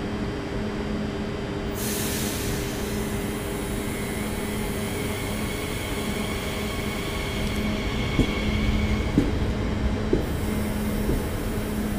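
Electric suburban train at a platform, humming steadily, with a sudden hiss of air about two seconds in. It then starts to pull away with a steady whine and a few clanks from the wheels and couplings, growing a little louder near the end.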